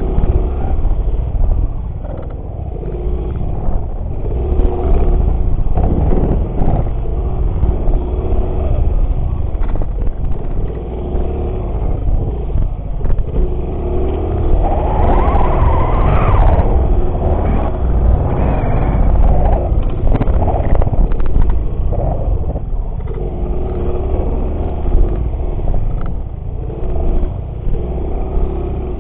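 A small motorcycle engine running under changing throttle while riding, over a heavy low rumble. The engine swells loudest about halfway through.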